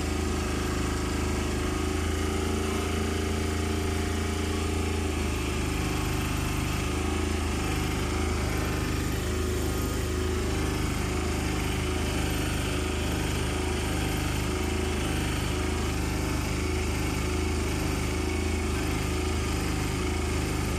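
An engine idling steadily with an even low pulse. Part of its higher hum drops away about five seconds in.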